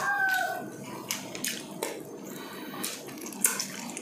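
Close-miked eating sounds: chewing, lip smacks and sharp wet mouth clicks at irregular intervals as food is eaten by hand, with one louder smack near the end. A rooster's crow trails off in the first half second.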